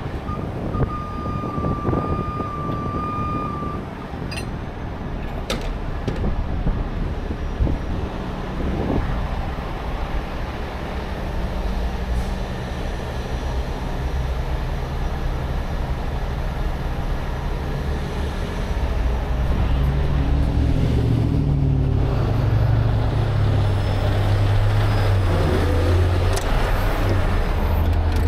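Heavy truck diesel engine running steadily. It grows louder with a wavering pitch about two-thirds of the way in. Near the start a steady high tone sounds for about three seconds.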